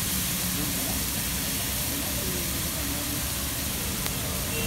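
Chopped onions, tomatoes and spices sizzling in oil on a large flat iron griddle: a steady hiss over a low rumble.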